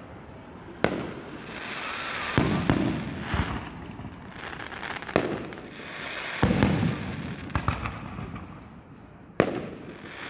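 Aerial firework shells bursting: about eight sharp bangs at irregular intervals of one to two seconds, each trailing off in echo. The loudest bang comes near the end.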